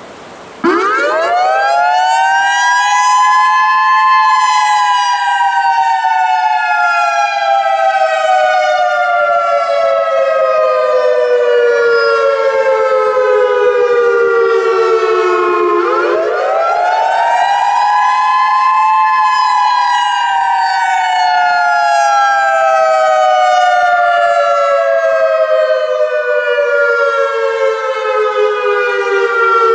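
Federal Signal EOWS 612 outdoor warning siren starts up under a second in. It climbs quickly in pitch over about three seconds, then slides slowly down over about twelve. At about sixteen seconds it climbs again and falls again, and it is rising once more at the end. This rising-and-falling wail is the siren's attack signal.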